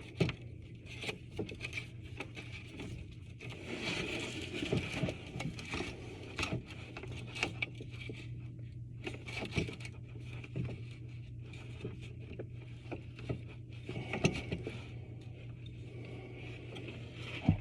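Tub drain and overflow pipe parts being handled and fitted by hand: scattered scrapes, clicks and light knocks, over a steady low hum.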